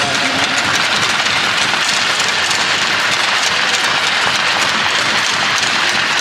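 Crowd applauding an award winner, a loud and steady mass of clapping in a large ice rink.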